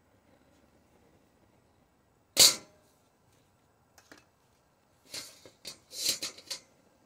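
A steel wok set down onto a metal burner grate with one loud, sharp clank about two and a half seconds in. Near the end come a few small clicks and then a quick run of shorter knocks and scrapes as the wok is shifted on the grate.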